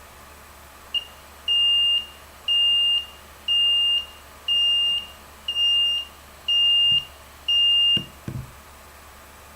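The PIC16F84A alarm clock's buzzer sounding its alarm: a high beep about half a second long, repeating once a second seven times, then stopping. A few dull knocks come as it stops.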